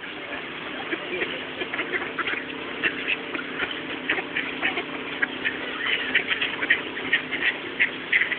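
A flock of ducks gathered round to be fed, quacking busily, many short quacks overlapping, over a steady low hum.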